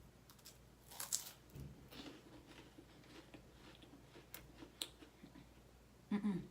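Biting into a stack of two crisp chocolate wafer cookies and chewing, with a few sharp crunches about a second in and again around four to five seconds.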